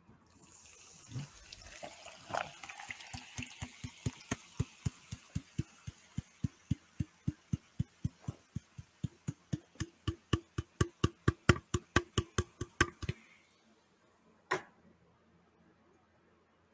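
Carbonated soda poured from a 12-ounce aluminium can into a plastic cup close to the microphone. It fizzes with a steady run of glugs, about four a second, that grow louder and then stop about thirteen seconds in. A single knock follows.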